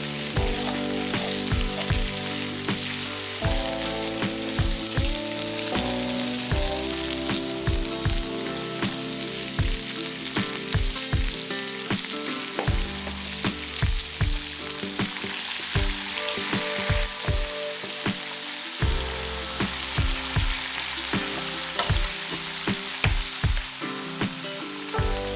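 Food stir-frying in sesame oil in a frying pan: a steady sizzle with frequent sharp clacks of a utensil against the pan as it is stirred, over background music.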